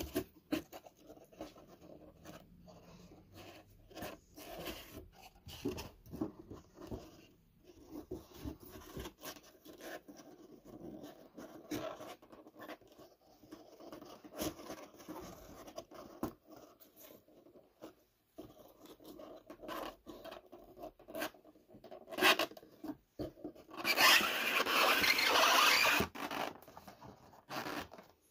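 Packaging and boxes being handled and set down: scattered rustles, taps and clicks, then a louder rasping sound lasting about two seconds near the end.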